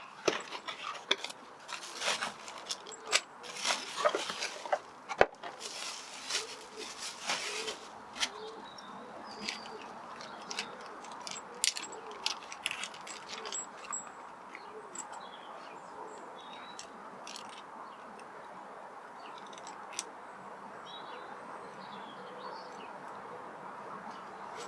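Hand tools and engine parts clicking and clinking during work on a car's ignition coil packs. The clicks and rustles are busy for the first several seconds, then come only now and then over a faint steady hum. Faint bird chirps come through now and then.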